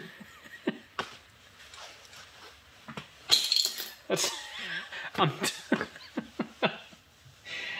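A man laughing in irregular, breathy bursts, part of a long laughing fit.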